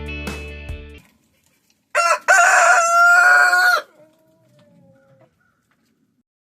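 Guitar music ends about a second in, then a rooster crows once: a short first note, a long held note, and a faint falling tail.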